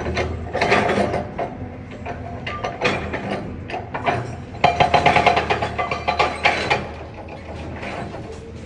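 Excavator at demolition work: its diesel engine running steadily under bursts of rattling, crunching clatter, loudest about five to seven seconds in.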